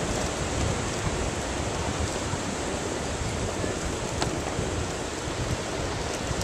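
A steady, even rushing noise outdoors, with a few faint ticks.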